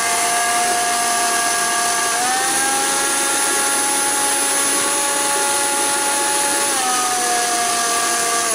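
Electric mixer grinder with a stainless steel jar running, grinding frozen watermelon chunks. The motor makes a steady loud whine; its pitch rises about two seconds in and drops back near the end.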